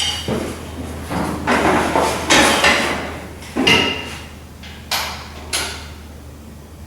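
A series of sharp metallic clanks and knocks, the first and one about 3.5 seconds in ringing briefly, with scuffing and scraping in between and two lighter knocks near the end.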